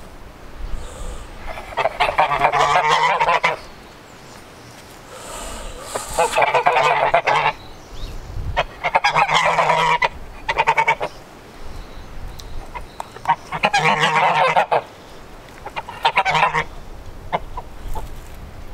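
White domestic geese honking in about six loud bouts of rapid, repeated calls, each lasting one to two seconds.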